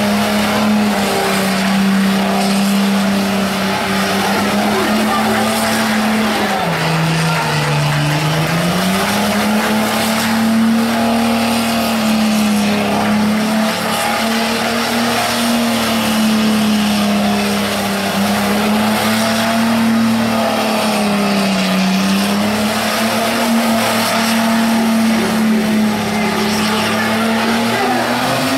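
BMW E30 3 Series car engine held at high revs as the car spins on wet tarmac, the revs dipping and climbing back about seven seconds in and again near twenty-one seconds, with tyre skid noise underneath.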